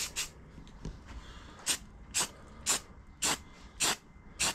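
Aerosol spray-paint can sprayed in short hisses at a saw blade's teeth: a quick pair at the start, then six more about every half second.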